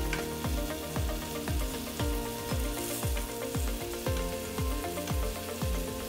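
Background music with a steady bass beat about twice a second, over the sizzle of banana slices frying in ghee in a pan.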